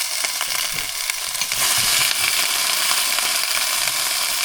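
Sausages and a burger sizzling in a frying pan on a portable camping cooker, a steady spitting hiss that grows a little louder about a second and a half in. The cooker is giving strong heat.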